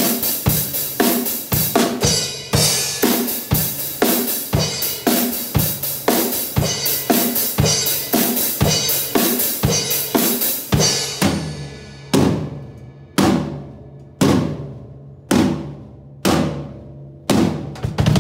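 Pearl drum kit played hard, with fast snare and bass drum under a constant wash of crash cymbals. About twelve seconds in it breaks into single heavy cymbal-and-drum accents, roughly one a second, each left to ring out.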